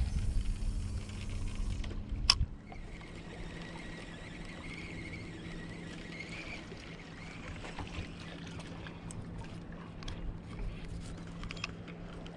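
A distant motorboat engine running steadily, a low even hum, with a sharp click about two seconds in.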